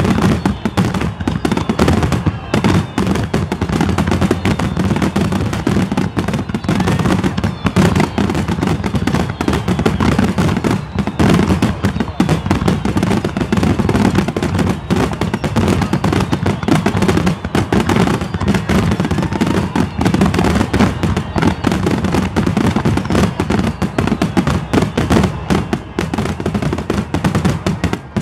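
A dense fireworks barrage: many aerial shells bursting in quick succession, running together into a continuous rapid crackle of bangs. It cuts off sharply at the very end.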